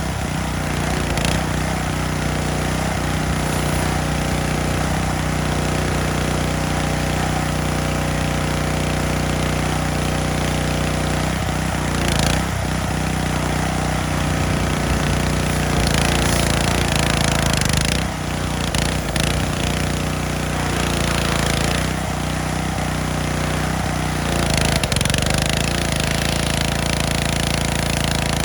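Small gasoline pressure washer engine running steadily under load, with the hiss of the water spray swelling and easing as it sweeps.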